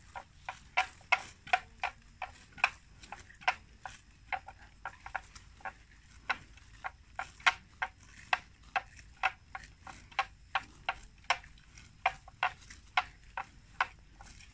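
Water buffalo grazing, tearing off mouthfuls of grass in a quick irregular run of short crisp rips, about two or three a second.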